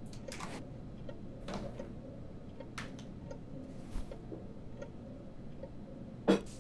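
A clock ticking steadily, about two ticks a second, under a few soft clatters of things being handled and set down. A single sharp knock about six seconds in is the loudest sound.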